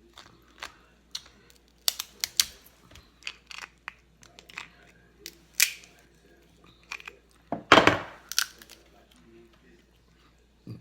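Crab-leg and shrimp shells being cracked and peeled by hand while eating: irregular sharp cracks and crinkling snaps, with the loudest, longest crackle about eight seconds in.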